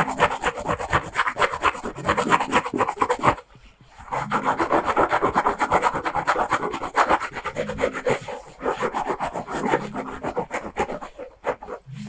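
Fingertips scratching quickly through thick hair at the scalp, a dense run of fast strokes. It pauses briefly about three and a half seconds in and again near the end.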